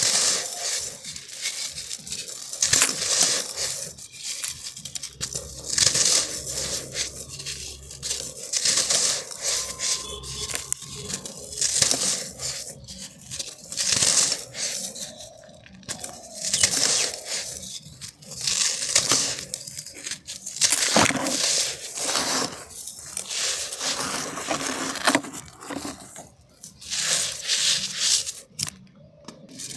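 Dry, dusty black sand being crushed and crumbled by hand in a clay pot: gritty, crunchy crumbling that comes in repeated surges about every one to two seconds.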